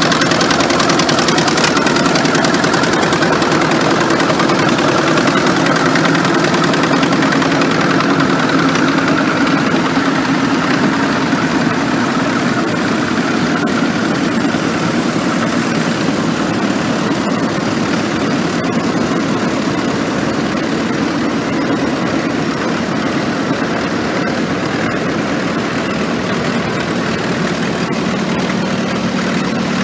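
A row of vintage Caterpillar and International Harvester crawler tractors, their engines idling together in a steady drone.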